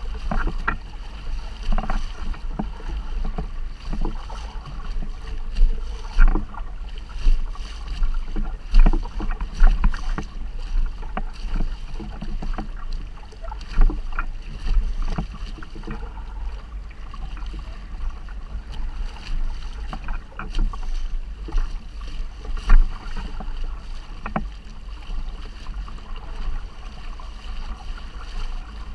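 Water splashing and rushing against the inflatable hull of an Intex Mariner 3 under sail, in irregular splashes, over a steady low rumble of wind on the microphone.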